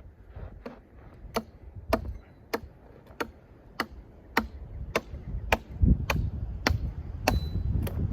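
A hand tool striking over and over at an even pace, a little under two sharp strikes a second. Wind noise rumbles on the microphone and grows stronger near the end.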